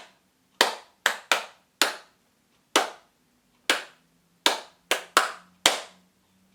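Hand claps, about ten, in an uneven pattern with some claps paired close together: the rhythm of a ukulele strumming pattern clapped out before it is played.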